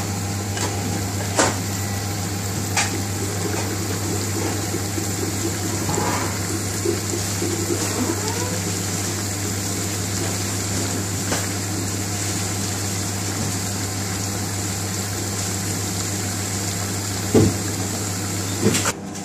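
A pan of tarka dal bubbling at a near boil on a gas stove: a steady rushing, bubbling noise over a constant low hum, with a few light clicks of the metal ladle against the aluminium pan. The sound cuts off abruptly near the end.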